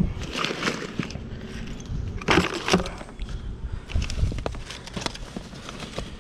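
Gloved hands rummaging through trash in a dumpster: irregular rustling and knocking as cardboard boxes, a plastic jug and fabric are shifted. The loudest handling noises come about two and a half seconds in.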